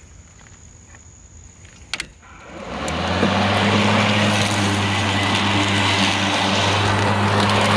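Craftsman V60 21-inch cordless electric lawn mower starting: a couple of sharp clicks about two seconds in, then the motor and blade spin up over about a second and run steadily with a low hum while cutting thick, wet grass and leaves.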